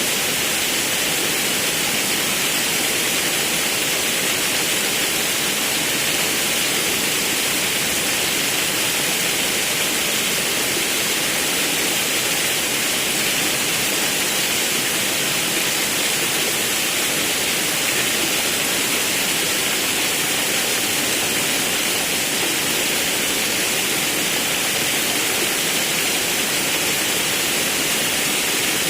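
Forest river rushing over a waterfall: a steady, even roar of water without pause.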